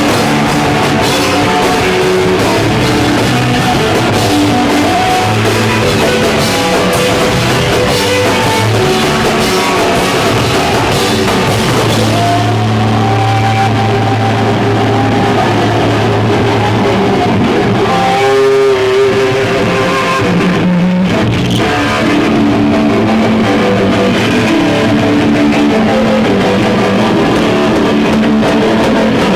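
Hardcore punk band playing a song live, with distorted electric guitar, bass and drum kit.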